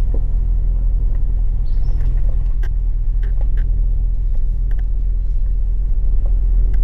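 Toyota Land Cruiser driving slowly over a rough dirt trail, heard from inside the cabin: a steady low engine and road rumble with scattered small clicks and knocks.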